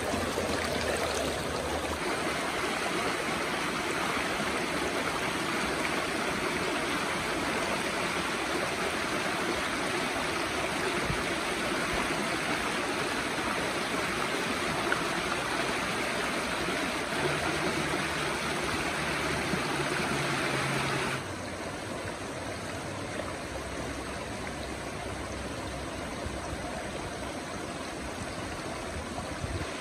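Fast, shallow stream rushing over rocks, a steady even rush of water. About two-thirds of the way through it suddenly becomes quieter and duller.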